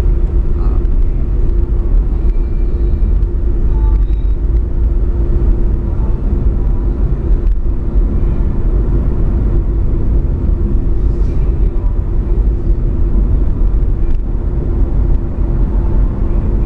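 A car on the move: steady engine and road noise, a loud low rumble with a constant hum running through it.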